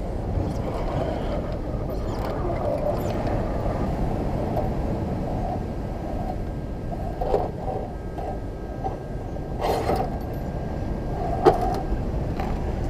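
Steady wind and surf noise. An RC rock crawler's electric motor whines faintly in the middle, and a few sharp knocks come in the second half as its tyres and chassis clamber over rock.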